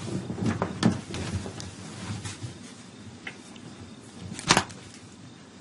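Scattered rustling and light clicks of movement in bed, with one louder swish about four and a half seconds in.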